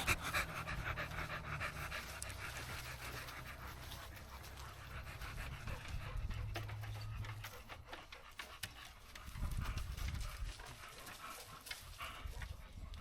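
A dog panting, strongest in the first half and fading.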